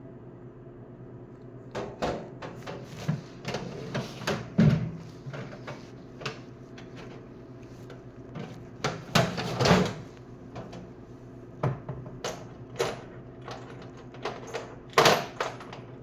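Irregular clicks, taps and clatters of small metal driver bits and hand tools being handled and tried for fit, over a steady low hum. A few louder knocks come in clusters.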